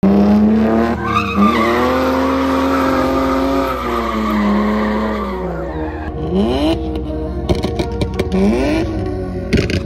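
BMW E46 drift car's straight-six engine held at high revs with tyres squealing and skidding. The revs fall about five seconds in, then rise in two quick sweeps as the throttle is blipped.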